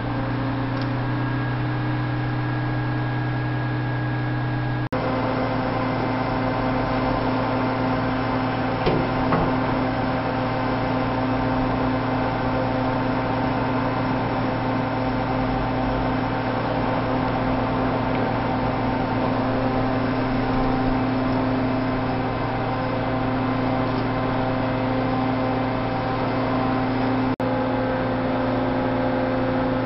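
Large crawler crane's diesel engine running steadily at raised revs, a continuous droning hum that shifts slightly in pitch about five seconds in.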